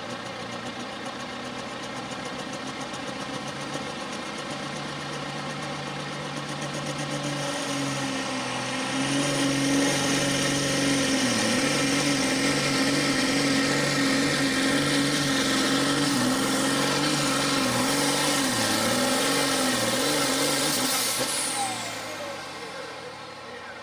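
A John Deere Pro Farm pulling tractor's turbocharged diesel engine revs up and hauls the weight-transfer sled down the track under full load. It gets louder about eight seconds in and its pitch wavers as it works. About 21 seconds in it drops off as the pull ends, with a falling whine.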